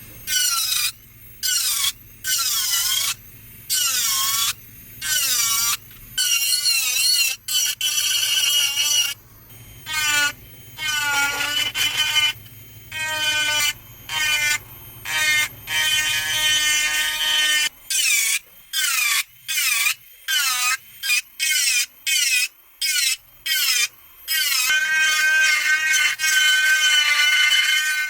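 A small power tool whining in many short bursts, on for a second or so and off again, its high pitch wavering under load while texturing a polymer pistol grip.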